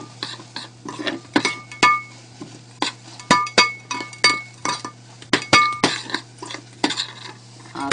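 A stirring utensil clinks and scrapes against a stainless steel pot while shiitake mushrooms and carrots are sautéed. The clinks come irregularly, about two a second, and many leave a short metallic ring.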